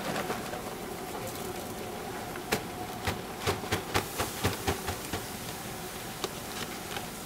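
A red paper fried-chicken box being handled and folded shut, giving a quick run of sharp taps and paper clicks in the middle and one more near the end, over a steady hum.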